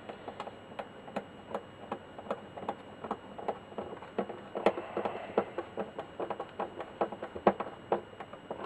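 Screwdriver driving in a deck-mounting screw on a record player, with a run of short regular clicks about two to three a second, louder through the middle.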